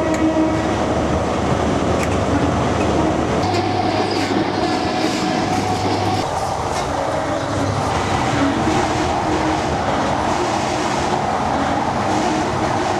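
A train running past at steady volume, its wheels clattering on the rails, with a low engine hum for a few seconds in the middle.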